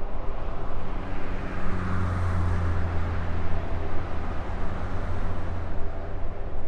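Steady low rumble with a rushing hiss that swells and then fades about two seconds in.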